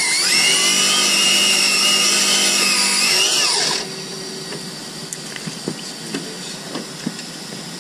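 High-pitched whine of an RC drag car's 7-turn modified electric motor, revved hard for about four seconds with the car standing still, so its wheels spin in place; the pitch rises at the start and winds down as it stops, followed by a few light clicks.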